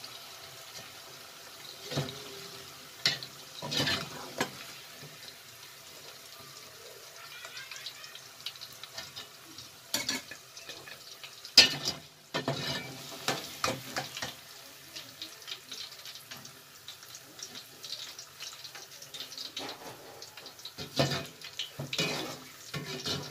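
Potato chips deep-frying, the oil sizzling. A metal slotted skimmer knocks and scrapes against the pot as the fries are lifted out, with the loudest clatter a little before the middle.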